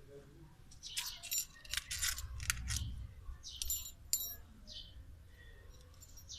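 Small metal bell on a cat toy jingling and rattling in quick clusters of clicks as a kitten bats it about. There is a longer run about a second in and a shorter one past the middle.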